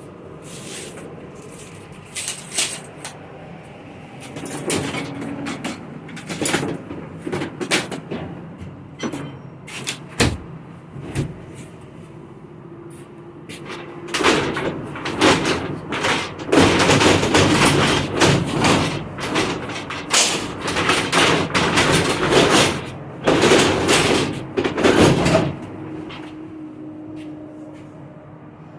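Accordion storm shutter being worked along its track: irregular clattering and scraping of the panels, sparse at first and then a dense, loud run from about halfway through that stops a few seconds before the end.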